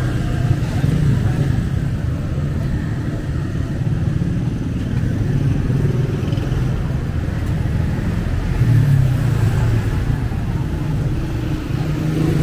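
Street traffic: motorcycles and motorcycle-sidecar tricycles running along the road, a steady engine rumble that swells as vehicles pass about a second in and again around nine seconds.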